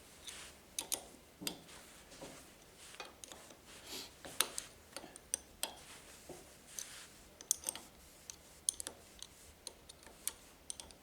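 Irregular light metallic clicks and taps of a spanner working the knife-retaining screws in a planer thicknesser's cutter block as they are loosened.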